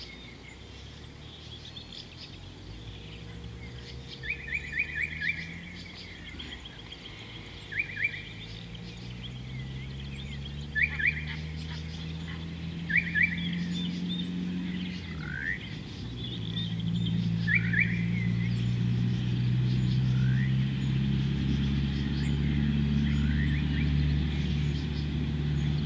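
Bird calls: short rattling trills repeated about six times, with a few rising whistled notes, over a low drone that slowly rises in pitch and grows louder, breaks briefly about fifteen seconds in, then holds steady.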